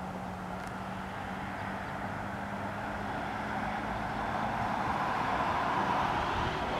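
Road traffic noise, a steady wash of passing-vehicle sound that slowly grows louder toward the end, with a faint low hum underneath that fades out partway through.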